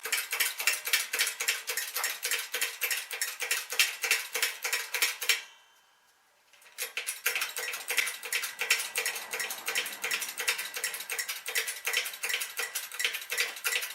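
Ratchet wrench clicking rapidly and steadily, about five clicks a second, as it turns the bearing press screw to push a new rear wheel bearing into the knuckle; the clicking stops for about a second midway, then resumes. The bearing is nearly bottoming out against the back of its bore.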